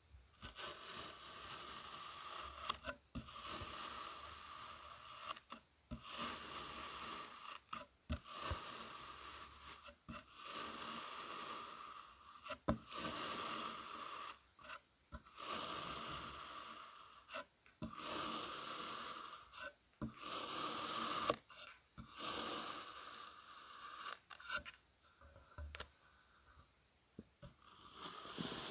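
Kinetic sand being cut and scooped with a tool: a run of scraping, crunching strokes, each a second or two long, with short pauses between them and a few sharp clicks.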